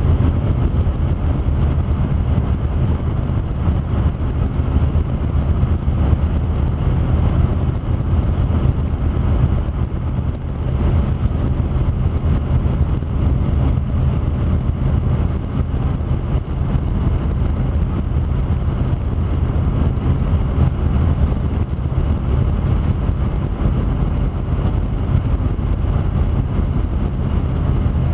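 Car driving along a road: a steady low rumble of tyres and engine, with no changes.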